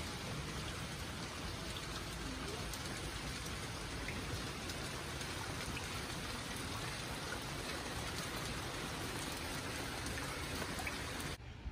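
Heavy rain falling steadily, an even hiss of rain with no other sound standing out; it cuts off suddenly near the end.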